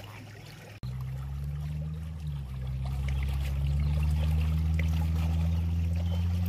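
Pool water trickling and lapping over a steady low hum that starts abruptly about a second in.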